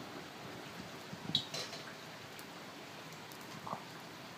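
Steady hiss of a propane wok burner heating oil in a carbon steel wok, with a few light ticks and crackles about a second in and one more near the end.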